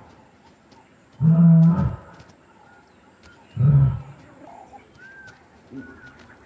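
Lion calling: two short, deep, loud moaning grunts about two and a half seconds apart.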